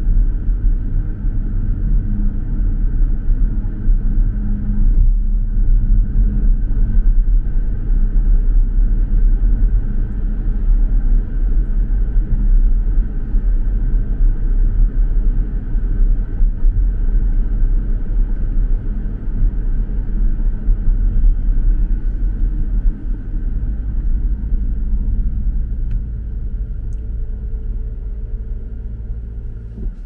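Car driving on city streets: a steady low rumble of engine and road noise, which eases off over the last several seconds as the car slows.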